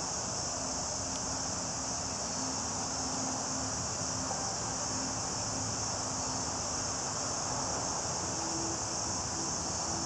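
Steady insect chorus, a continuous high-pitched shrill that holds unchanged throughout.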